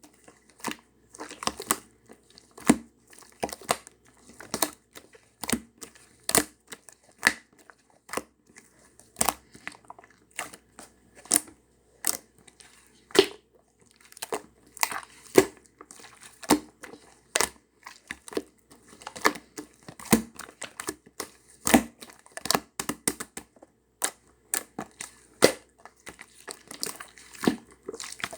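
Clay slime being squeezed and pressed by hand, giving irregular sharp clicking pops, about two or three a second.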